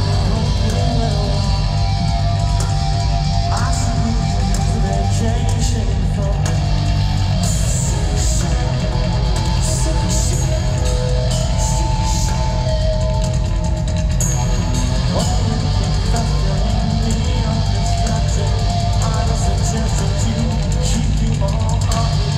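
Heavy rock band playing loud and steady live in an arena, with guitar, bass and drums.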